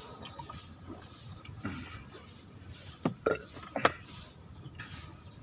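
A man drinking cold water straight from a plastic water cooler jug, with quiet swallowing and a few short sharp sounds from a little after three seconds in as he finishes.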